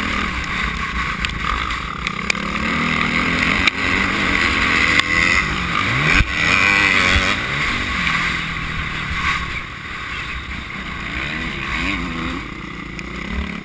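Motocross bike engine heard from a camera on the bike, revving up and falling back over and over as it is ridden hard, with a sharp rise in revs about six seconds in. A steady rush of wind and a few sharp knocks run under it.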